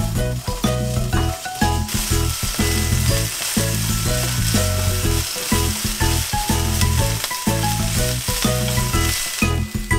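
Komatsuna stems and carrot sticks sizzling in hot oil in a frying pan as they are stir-fried and tossed with chopsticks. The sizzle grows louder about two seconds in, over melodic background music.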